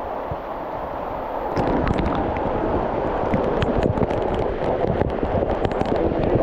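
Hot-spring waterfall rushing and spattering, with drops striking close to the microphone as crackling clicks; it grows louder and denser about a second and a half in.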